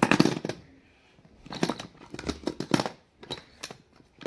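Plastic baby toys (balls, rings and rattles) clattering and knocking together as they are rummaged through in a plastic tub, in several short bursts of clicks.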